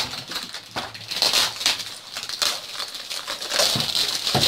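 Crinkling and rustling of the clear plastic packaging on toy Easter baskets as it is handled and pulled off, a busy run of crackles with a few sharper clicks.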